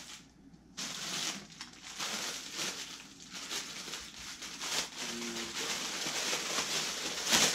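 Clear plastic packaging crinkling and rustling as packs of soft-plastic shad lures are handled and pulled from a bag, starting about a second in and running as a steady crackle.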